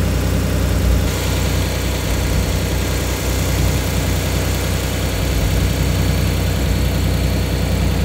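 Truck engine running steadily, with a rush of noise over it that gets a little brighter about a second in.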